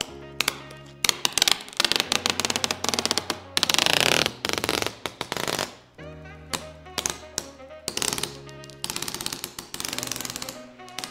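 Clear protective plastic film being peeled off a TV's screen edge: rapid crackling ticks in runs, with a longer, louder tearing stretch about four seconds in. Background music with steady low tones plays underneath.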